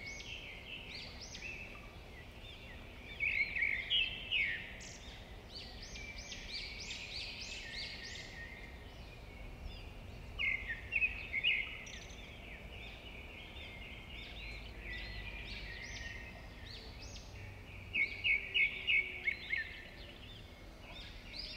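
Birds chirping in short phrases of quick high notes, with louder bursts about three seconds in, around ten seconds in, and near the end, where there is a run of about six quick notes.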